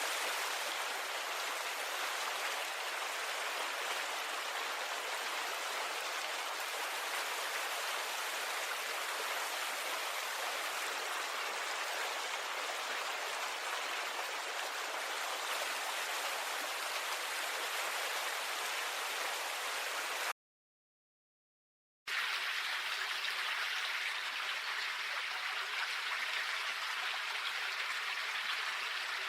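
Steady rush of water from a nature recording, even and unbroken, that stops after about twenty seconds; after a short silence a second, brighter water recording starts and runs on steadily.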